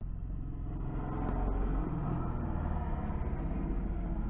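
Motocross dirt bike engine running out on the track, heard under a low, steady rumble.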